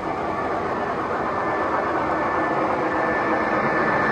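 O-gauge three-rail model train, a diesel locomotive pulling boxcars, running along the track with a steady rolling noise of wheels and motor that grows a little louder near the end as it approaches.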